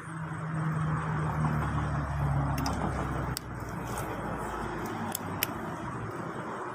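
A motor vehicle passing close by, its engine hum falling slightly in pitch as it goes and the low rumble fading about five seconds in. A few sharp clicks come in the second half.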